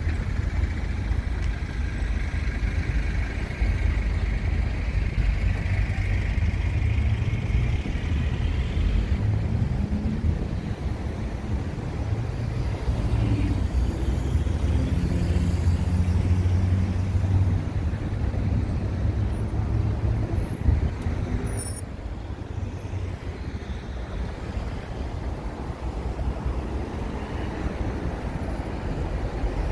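Heavy road traffic alongside: car and truck engines running in congested lanes, a steady low rumble. The level drops suddenly a little about three-quarters of the way through.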